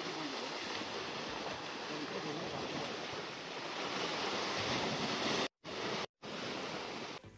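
Sea surf washing against the rocks: a steady rushing hiss that cuts out twice briefly near the end.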